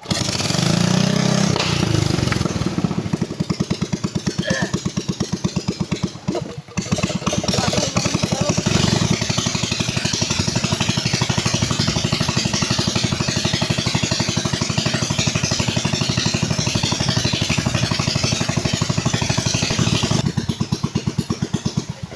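Small boat engine running steadily in a fast, even chug. It dips briefly about six seconds in.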